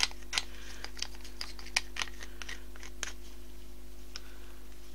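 Small plastic spatula scraping and tapping against a thin plastic measuring cup and bowl while emptying the oil and fragrance mix onto the dry powder: a run of short, irregular clicks and scrapes, thinning out after about three seconds.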